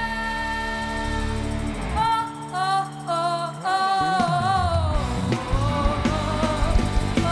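Gospel song with a held sung note, then a melismatic vocal line without clear words over the band and a steady beat.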